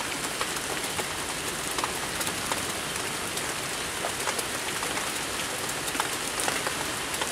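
Heavy rain falling steadily, with many single drops ticking sharply close by.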